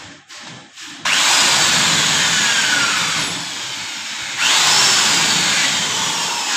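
Corded electric drill boring into an aluminium door frame at a hinge, run twice: it starts abruptly about a second in and eases off, then runs again from about four and a half seconds. Each run has a whine that rises and then falls in pitch.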